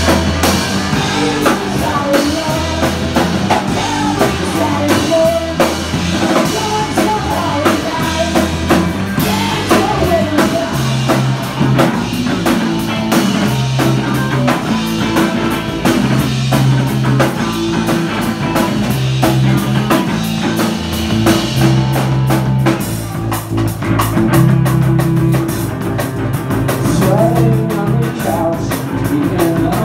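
Live rock band playing loud: drum kit, bass guitar and electric guitar kicking in together right at the start and driving on with a steady bass line.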